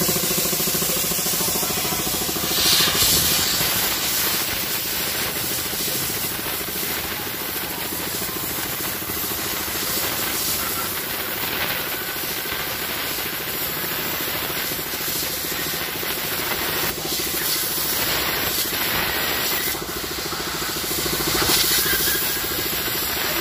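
Compressed air hissing from an air-hose nozzle as it blows dust out of a cylindrical truck air filter element, over the steady running of a belt-driven piston air compressor. The hiss surges louder about three seconds in and again near the end.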